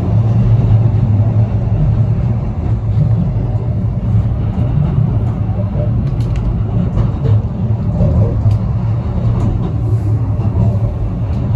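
Steady low rumble of a vehicle in motion, with scattered faint clicks and knocks.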